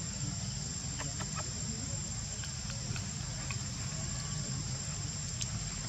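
Steady high-pitched insect drone over a low, wind-like rumble, with a few faint short ticks or calls in the first half.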